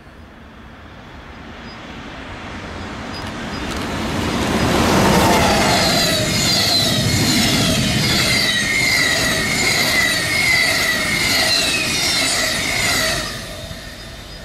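Train approaching and passing at speed. It grows louder over the first five seconds, then a run of short falling whines repeats as the cars go by. It drops near the end and cuts off suddenly.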